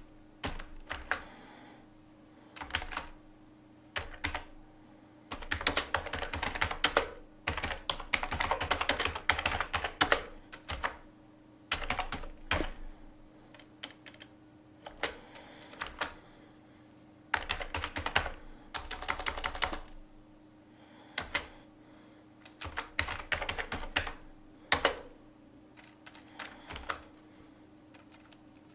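Typing on a computer keyboard, rapid key clicks in bursts of a second or two with short pauses between, over a faint steady hum.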